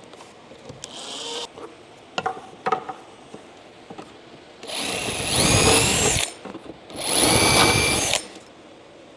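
Handheld electric power tool run twice in short bursts of about a second and a half each, its motor whine shifting in pitch as it speeds up and slows. A few light knocks come before the runs.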